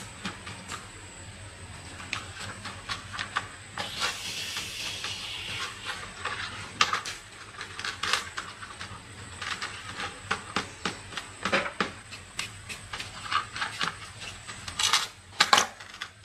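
Tools and metal parts clicking and knocking as they are handled at irregular intervals, with a hiss lasting about two seconds about four seconds in.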